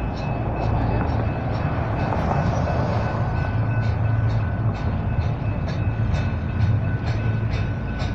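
Double-stack intermodal container train rolling past: a steady low rumble of the cars with regular clicks from the wheels, about two a second, and a faint steady high-pitched tone over it.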